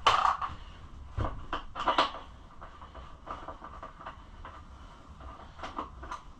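Scattered clicks and knocks, several close together in the first two seconds, then a few more spread out: hand work on hard parts.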